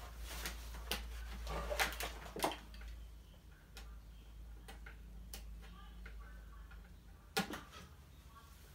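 Scattered sharp clicks and knocks from a plug and power adapter being handled and connected to an animatronic figure, several in the first two and a half seconds and a few more later, over a low steady hum.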